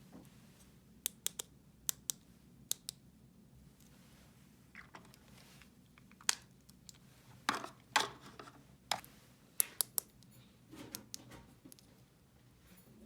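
Small plastic toy pieces being handled: irregular sharp clicks and taps, with a few short bursts of rustling.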